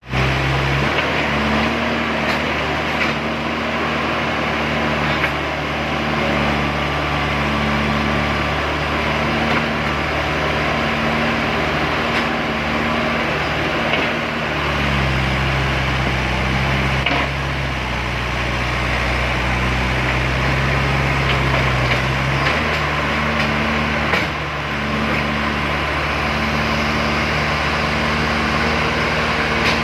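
Diesel engines of a backhoe loader and a tractor running steadily under load on a hill climb. The engine note changes and deepens for several seconds midway, then returns.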